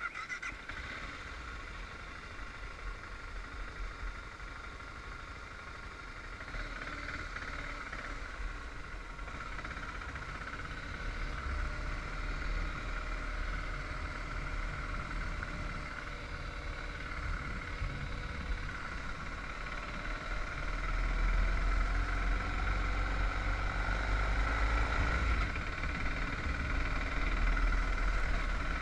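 Motorcycle engine running steadily while riding, with a low rumble of wind and road that grows louder about two-thirds of the way through.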